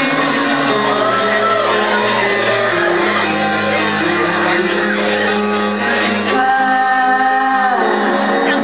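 A live band plays the opening of a song through the PA, with sustained keyboard and guitar tones, while the audience shouts and whoops over it. About six and a half seconds in, the low bass drops out and a single held note comes forward.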